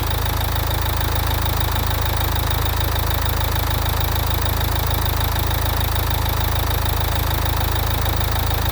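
Nissan Juke engine idling steadily.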